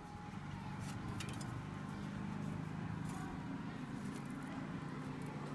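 Thin metal reballing stencil sheets being handled, giving a few faint light clicks over a steady low hum.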